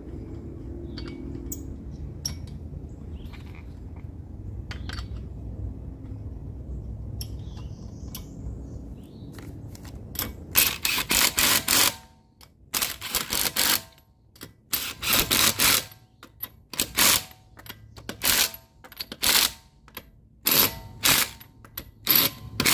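Impact wrench run in a string of loud rattling bursts, the first few about a second long and the later ones brief, as typical of lug nuts being run down and hammered snug. For the first ten seconds or so there is only a low steady rumble with a few faint clicks.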